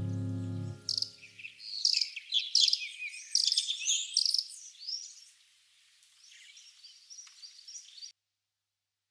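A low, steady ambient music drone ends about a second in, then birds chirp and sing in a quick, varied run of calls that cuts off abruptly about eight seconds in.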